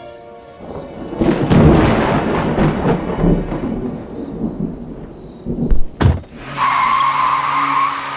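Thunder sound effect: a rumbling roll that starts under a second in, with several sharp cracks, then one loud clap about six seconds in. Near the end a different steady sound with a held tone takes over.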